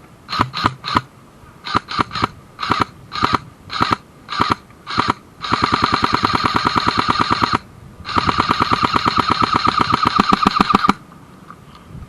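Airsoft electric gun firing: several short bursts of a few shots each, then two long full-auto bursts of about two and three seconds, with rapid, evenly spaced shots.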